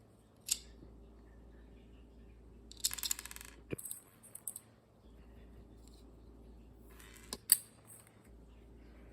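A 3D-printed plastic pistol being worked by hand: a single click, a quick rattling run of ticks with a few more clicks, then another short rattle ending in a sharp snap, the loudest sound.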